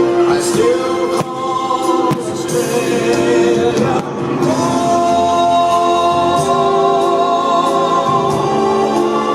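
Background music with singing voices holding long notes over a sustained accompaniment.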